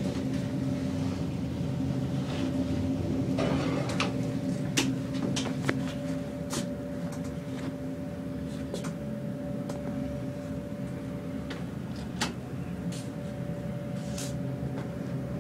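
Traction elevator cab travelling up its shaft: a steady hum with a couple of steady tones, and scattered light clicks and ticks.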